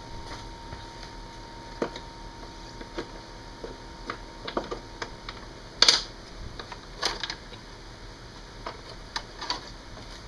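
Scattered light metallic clinks and taps of hand tools and small hardware (bolts, washers) being handled, irregular, with the loudest clink about six seconds in.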